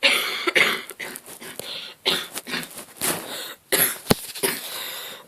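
A person in an asthma attack coughing and breathing hard: a run of noisy, chesty bursts about a second apart, with a sharp click about four seconds in.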